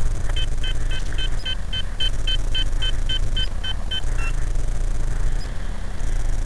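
A quick run of about a dozen evenly spaced electronic beeps, nearly four a second, ending in one lower beep, over a steady low rumble.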